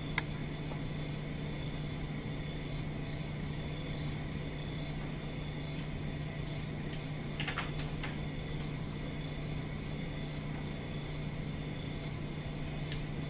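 Steady low background hum with an even hiss, and a few faint clicks: room or equipment noise with no distinct event.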